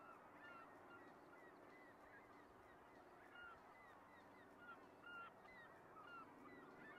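Faint calls of a distant flock of birds, many short overlapping calls, over a faint low steady hum.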